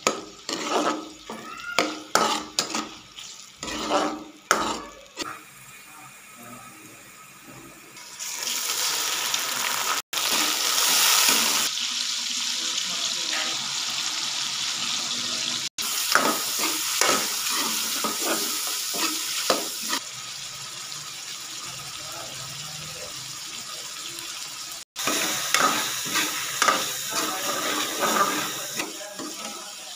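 A steel ladle clinks and scrapes in an aluminium pot of onions frying in oil for the first few seconds. From about eight seconds in there is a steady hiss of frying as pieces of mutton kapura sizzle and are stirred, and the sound cuts out briefly three times.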